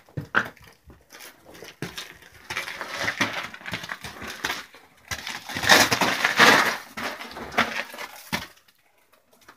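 Close handling noise of a handheld camera moving through a tight rock crevice: scraping, rustling and small knocks of the camera and body against rock and sand, loudest just past halfway and stopping near the end.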